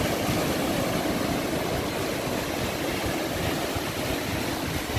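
Sea waves breaking and washing through shallow surf, a steady rush of water.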